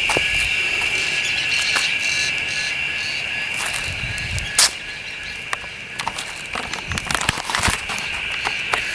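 A steady, high-pitched insect chorus buzzing throughout, with scattered sharp clicks and knocks, the loudest about halfway through.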